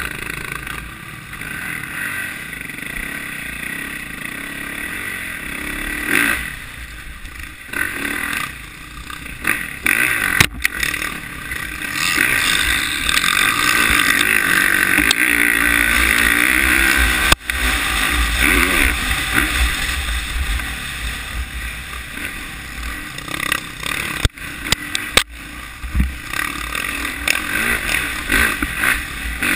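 Dirt bike engine revving up and down under the rider, heard from a helmet camera with some wind noise. It is loudest during a long hard pull about twelve to seventeen seconds in, and the engine note cuts out sharply for an instant a few times.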